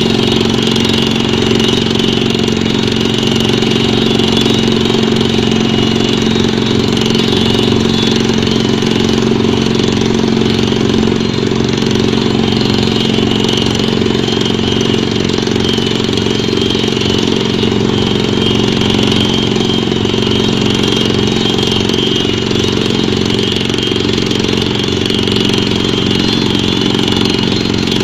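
Pneumatic drilling rig running steadily: a loud, continuous engine-like drone with a fast even pulse in the bass and no change in pace.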